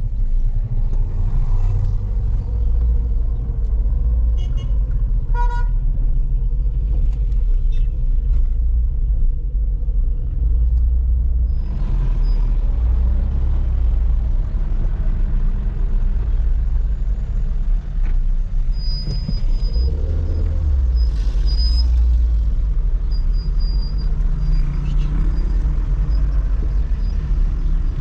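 A motor vehicle running, with a steady low rumble of engine and road noise. A short horn beep sounds about five and a half seconds in.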